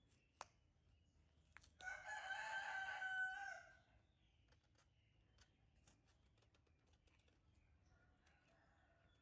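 A rooster crows once, a single call of about two seconds starting about two seconds in. Faint clicks of a knife cutting into fruit are heard around it, and a much fainter call comes near the end.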